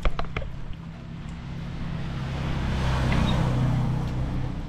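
A motor vehicle passing by: a low engine hum with tyre and road noise that swells to its loudest about three seconds in and then fades. A few sharp clicks sound right at the start.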